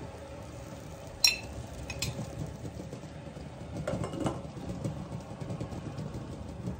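A metal utensil clinks against a stainless steel saucepan while stirring vegetables in water, with a sharp ringing clink about a second in and a lighter one shortly after. Around four seconds in, a glass pot lid is set down on the pan with a few knocks, over a low steady background.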